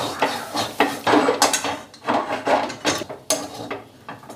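Flat metal spatula scraping and stirring a thick, dry spice masala around a metal kadai, with repeated rasping strokes about two a second. The masala is being fried with crushed toast biscuit mixed through it.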